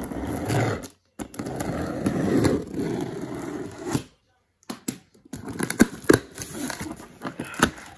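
Packing tape on a cardboard box being slit with a handheld cutter: a sustained scraping, crackling rasp, then several sharp crackles and knocks as the box is handled.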